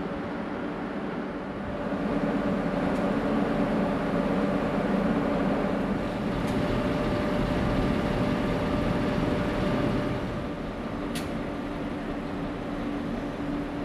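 NR class diesel-electric locomotive running with a steady droning hum that swells louder for several seconds and then eases back. A single sharp click sounds near the end.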